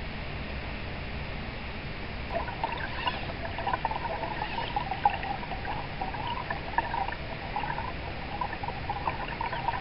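Flowing river water: a steady rush, with quick irregular burbling and trickling that sets in about two seconds in.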